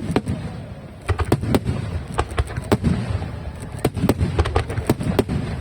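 Aerial fireworks bursting in quick succession: a rapid run of sharp bangs and cracks, several a second at times, with a low rumble underneath.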